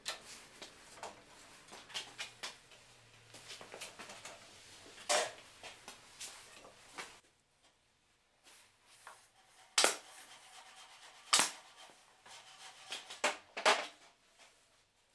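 Scissors snipping through jute upholstery webbing, then the webbing being handled and tugged, with a few loud, sharp clicks in the second half.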